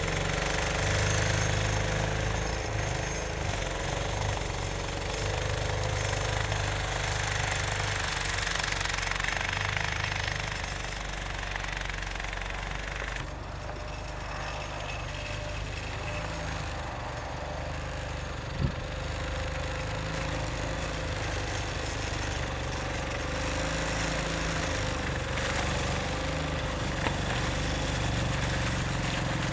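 Argo six-wheel-drive amphibious ATV's engine running steadily as it drives through mud, with one sharp knock about two-thirds of the way through.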